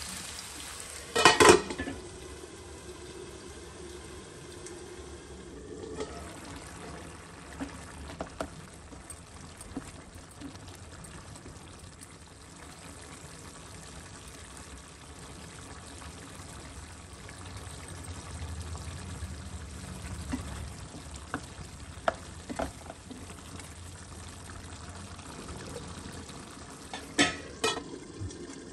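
Chicken pieces sizzling and bubbling in masala in a nonstick wok, with a spatula scraping and knocking against the pan, loudest in a few sharp knocks about a second and a half in. Near the end a steel lid clanks onto the pan a couple of times.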